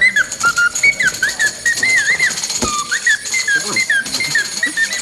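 A person whistling a quick tune, the notes hopping and sliding up and down in pitch. A single sharp click sounds about halfway through.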